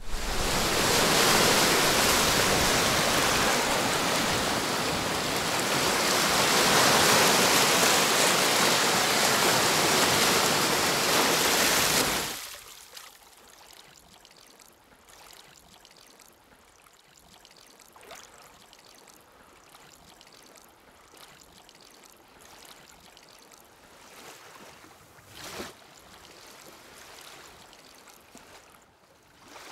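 Loud, steady rushing and splashing of water that cuts off abruptly about twelve seconds in. It leaves only faint, quiet water noise with a few small soft sounds.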